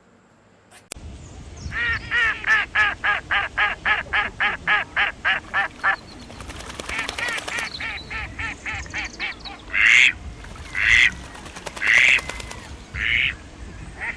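Ducks quacking: a rapid run of quacks about four a second, then quieter, quicker calls, then four loud single quacks about a second apart.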